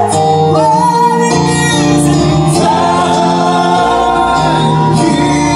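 Male southern gospel quartet singing in close harmony with piano accompaniment, long held chords with a high tenor voice on top, heard live through the stage sound system.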